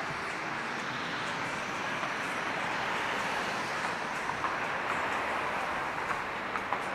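Steady hiss of city street traffic, with a few faint short ticks in the second half.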